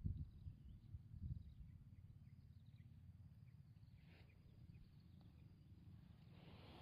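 Near-silent outdoor ambience: a low rumble, a little stronger in the first second or so, with a few faint high chirps.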